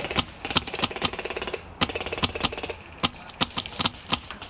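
Airsoft guns firing: sharp single shots, irregularly two or three a second, over a rattle of rapid full-auto fire that thins out about three seconds in.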